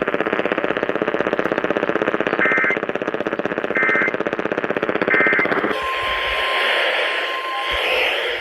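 Radio receiver playing the EAS end-of-message signal: three short data bursts about a second and a half apart, closing a severe thunderstorm warning, over a harsh, rapid buzzing static. Just before six seconds in the buzz cuts off and a radio hiss with a faint steady tone follows.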